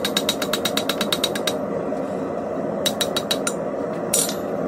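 Hammer blows on metal in a fast, even run of about eight strikes a second, then a pause and a shorter run of about six strikes, over a steady rushing noise.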